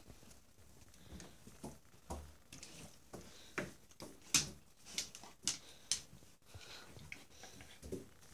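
Dogs sniffing and shuffling close by: a run of short, sharp sniffs, about two a second through the middle.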